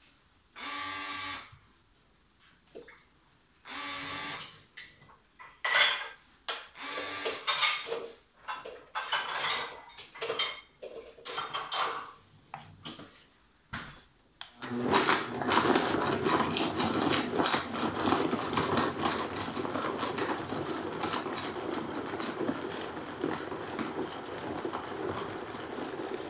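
Irregular knocking and clattering as the blender jar is handled, then about halfway through the Vitamix 7500 blender's motor starts and runs steadily, blending mango and strawberries into a smoothie.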